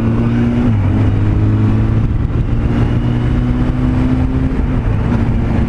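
Yamaha FZS600 Fazer's inline-four engine running under way, heard with road and wind noise; its pitch dips briefly about half a second in and again near the end.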